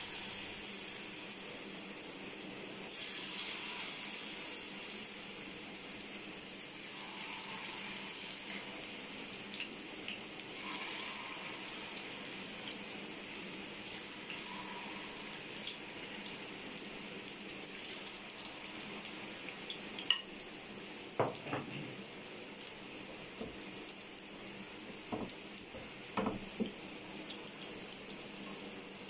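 Pakora batter sizzling in shallow oil on a hot tawa griddle: a steady hiss that swells about three seconds in. A few short clinks of a utensil against the pan come about two-thirds of the way through.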